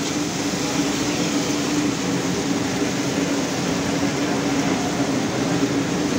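Steady rushing noise with a constant low hum from a wok stove while chillies stir-fry in oil.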